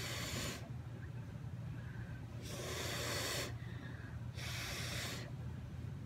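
A person blowing hard by mouth onto wet acrylic pour paint to push it outward: three breathy blows, the first ending just after the start, one about two and a half seconds in and one about four and a half seconds in, over a low steady hum.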